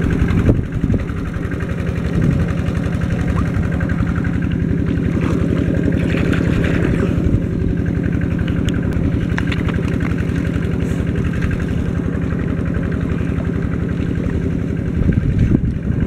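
Small engine running steadily at a constant speed: the pump engine draining the fish pond.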